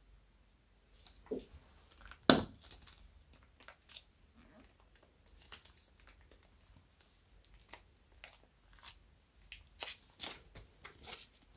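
Clear plastic piping bag filled with clear slime crinkling and crackling as hands handle and squeeze it, in irregular crackles with one loud sharp crackle about two seconds in and a busier run near the end.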